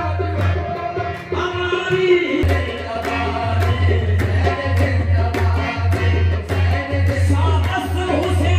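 Qawwali music: group singing over harmonium, with drum strokes keeping a steady rhythm.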